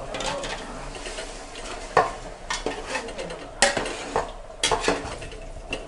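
Spoon stirring chicken and masala in a cooking pot over a low sizzle, knocking sharply against the pot several times.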